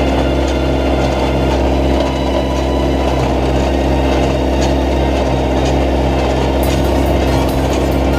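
Tractor engine running steadily under work, with a regular pulse about twice a second. A run of sharp light clicks joins it near the end.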